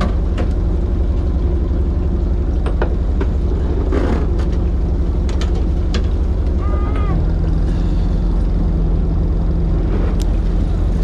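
Fishing boat's engine running with a steady low drone, its pitch dropping slightly about seven seconds in, with a few sharp clicks on top.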